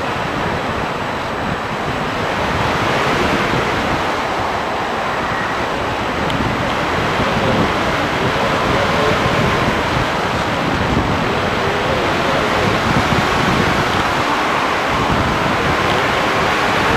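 Steady rush of wind over a model airplane's onboard camera microphone in flight, with a faint wavering whine from the plane's motor. The rush grows a little louder a couple of seconds in.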